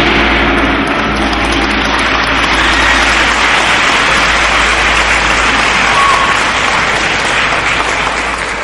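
Audience applauding in a large hall, loud and steady, easing off slightly near the end.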